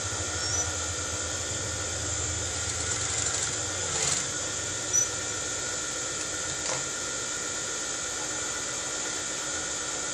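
Steady mechanical hum with a thin high whine running underneath, and a couple of brief soft rustles of fabric being handled about four and five seconds in.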